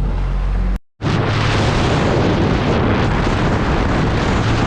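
Motorboat engine running with a steady low hum under heavy wind buffeting on the microphone. The sound cuts out completely for a moment about a second in, then comes back with loud, rushing wind noise over the engine.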